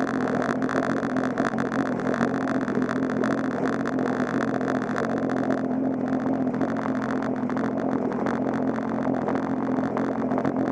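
A vehicle engine running at a steady speed, with a hiss over it that eases off a little over halfway through.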